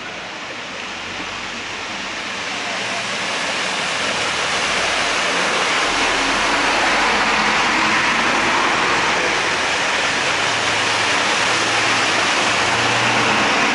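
Buses driving through deep floodwater on a street, their tyres throwing up a steady rushing hiss of spray over a low engine hum. The noise builds over the first few seconds as the buses come close, then cuts off suddenly at the end.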